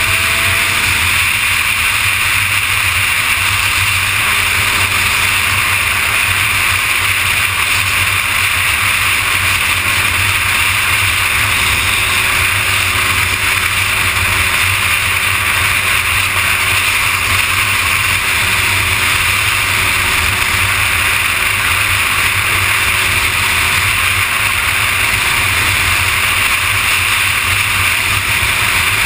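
Kawasaki ZX-6R inline-four sport bike cruising steadily at freeway speed, its engine note mostly under a steady rush of wind noise on the microphone.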